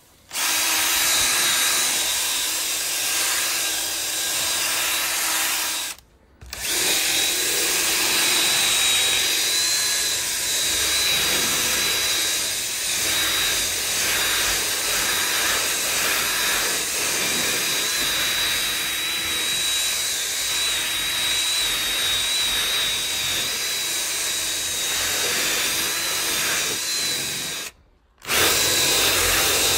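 Ryobi cordless drill spinning a bristle brush attachment against upholstery fabric: a steady high motor whine over a rough scrubbing noise as the pre-treatment is agitated into the sofa. It cuts out briefly twice, about six seconds in and near the end.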